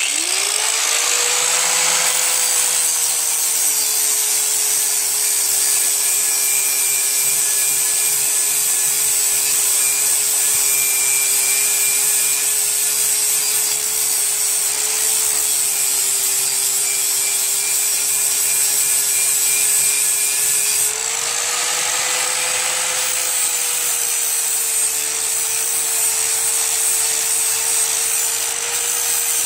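Ryobi angle grinder switched on, spinning up, and grinding the cutting edge of a steel lawn mower blade: a steady motor whine over a harsh grinding hiss, sharpening an edge that had worn too rounded off. About 21 seconds in, the motor's pitch rises briefly and then settles back.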